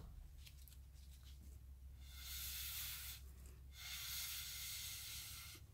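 Breath blown hard through a rubber straw in two long puffs, each a soft hiss lasting more than a second; the first starts about two seconds in, the second follows after a short pause.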